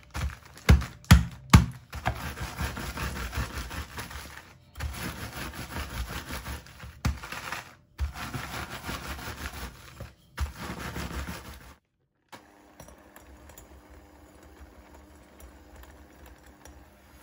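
Oreo cookies in a plastic zip-top bag being crushed with a wooden rolling pin: three sharp knocks in the first two seconds, then crunching and plastic crinkling as the pin rolls over the crumbs, ending abruptly about 12 seconds in. After that comes a faint steady hum from an electric hand mixer beating cream cheese in a glass bowl.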